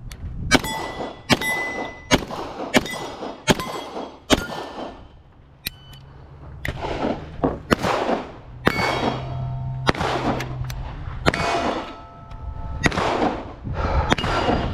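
A string of 9mm pistol shots from a Beretta M9 at steel plates, each hit giving a metallic ring. About six quick shot-and-ring pairs come in the first five seconds, and more shots and ringing plates follow through the rest.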